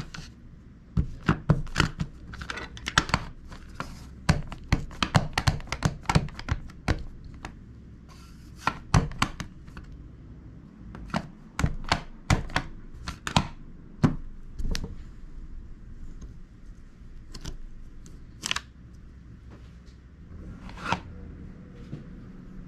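A rubber eraser stamp on a LEGO-brick handle dabbed again and again onto an ink pad, a quick run of light plastic taps and clicks that thins out after about fifteen seconds, followed by a couple of single knocks.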